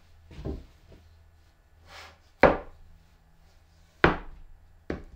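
Wooden knocks as a plywood box is handled and set against a wooden workbench: a soft bump, then three sharp knocks about 2.5, 4 and 5 seconds in.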